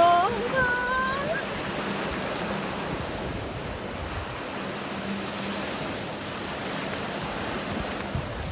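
Sea surf washing on the shore, a steady rush of noise. A voice trails off in the first second or so.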